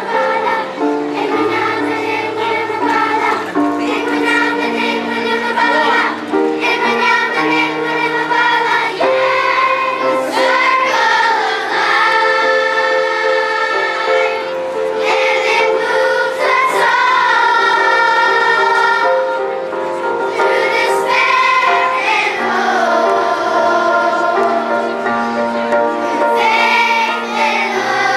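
Children's choir singing a song, with long held notes over a steady instrumental backing.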